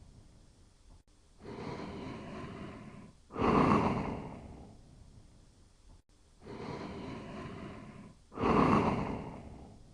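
Snoring in sleep: a loud snore about every five seconds, twice, each fading off, with softer breaths between.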